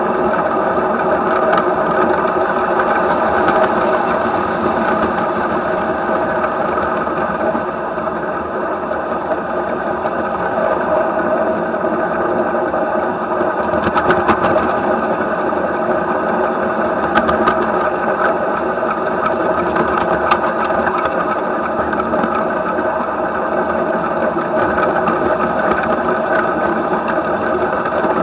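7¼-inch gauge live steam model of a German Class 23 locomotive running along the track: a steady, fast mechanical rattle and hum of its wheels and running gear on the rails, with a few sharp clicks around the middle.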